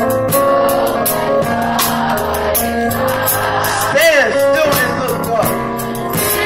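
Live gospel music: drums with regular cymbal strokes over held low notes from the band. A voice slides and wavers through a sung phrase about four seconds in.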